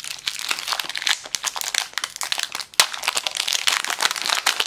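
Foil wrapper of a Magic: The Gathering booster pack crinkling and tearing as it is ripped open by hand: dense, irregular crackling, with one sharp crack a little past halfway.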